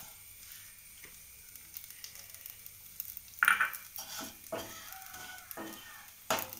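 Ladle stirring and scraping vermicelli as it roasts in ghee in a pan, with a faint sizzle. The scrapes come louder and more often from about halfway.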